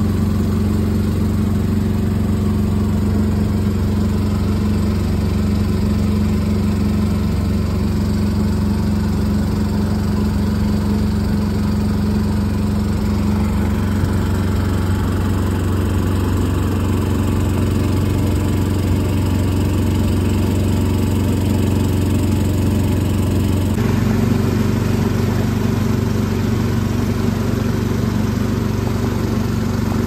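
Boat motor running steadily at an even pitch. Near the end its tone shifts suddenly.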